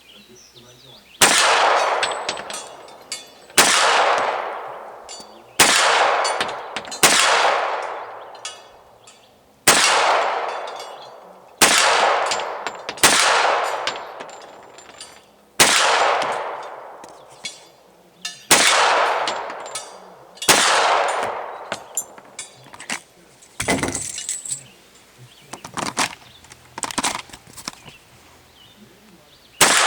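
Hi-Point .40 carbine fired single shots at steel plates, about ten shots irregularly spaced one to three seconds apart. Each shot and steel hit is followed by a ring that fades over a second or more. Near the end come a few light clicks between shots.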